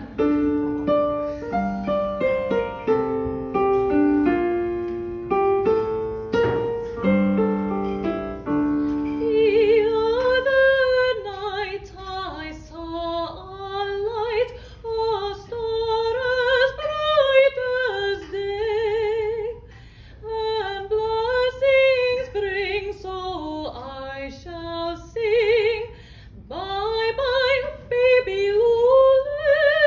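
A Yamaha digital piano plays an introduction alone for about nine seconds, then a woman comes in singing a liturgical song in operatic style, with wide vibrato, over the piano accompaniment.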